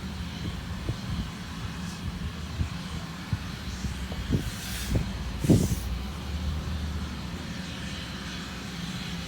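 Sawmill machinery running with a steady low hum, with a few short knocks and clanks and two brief hissing bursts near the middle.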